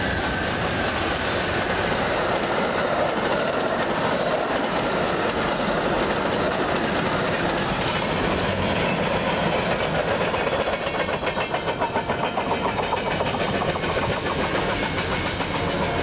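Amtrak passenger train (GE P42DC diesel locomotives and Superliner cars) passing close by on one track while an empty coal train of hopper cars rolls past on the next: a loud, steady rumble of wheels on rail. From about ten seconds in, the wheels clatter in a quick, even rhythm.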